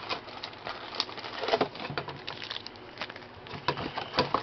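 Foil-wrapped card packs and a cardboard box being handled: rustling, crinkling and light knocks and clicks, with a brief low pitched sound about a second and a half in.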